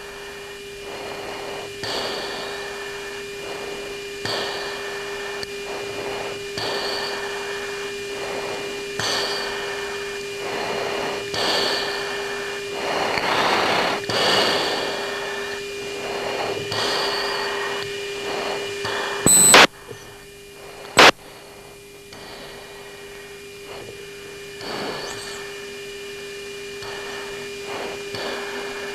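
Cockpit audio track of a fighter's head-up display tape between radio calls: a steady electrical hum with a soft hiss swelling about every two seconds. Two sharp clicks, a second and a half apart, about nineteen seconds in.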